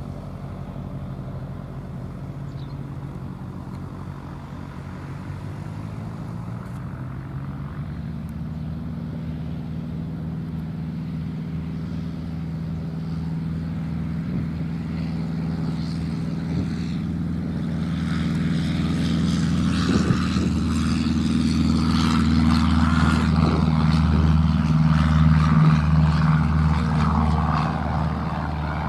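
Reims FA152 Aerobat's four-cylinder Lycoming engine and propeller running, building slowly to take-off power. The sound grows louder through the take-off run and is loudest a few seconds before the end, then eases as the aircraft lifts off and climbs away.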